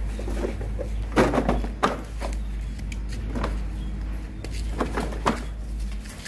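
Plastic ride-on toy car knocking and clattering as it tips over onto its side: a handful of sharp knocks, the loudest about a second in, over a steady low hum.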